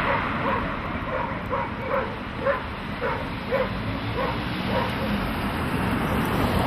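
A dog barking in quick short barks, about two a second, at passing cars, over the steady noise of road traffic. The barking dies away about five seconds in.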